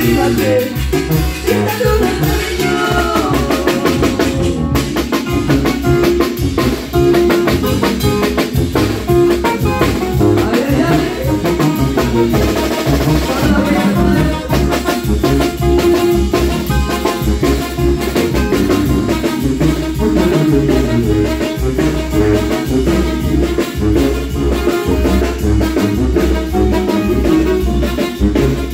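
A banda plays live: brass (trumpets, trombones) and tuba over a drum kit keeping a steady beat. A sung vocal line is heard in the first few seconds.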